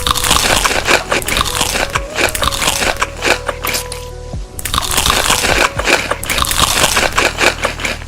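Loud crunching of crunchy food being bitten and chewed close to the microphone, in four bouts with short breaks between them, over quiet background music.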